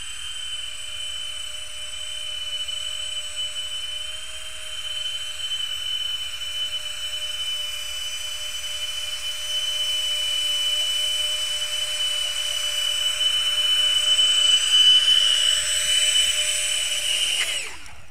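Three electric ducted fans on a tricopter drone whining steadily in flight, getting louder toward the end. About a second before the end they spin down quickly with a falling whine as the motors are cut after it settles on the ground.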